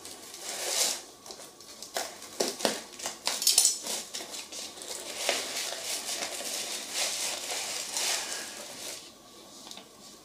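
A kitchen knife slicing and scraping through the plastic wrap and packing tape of a cardboard parcel, with crinkling and sharp clicks, then quieter paper rustling near the end as the box is opened.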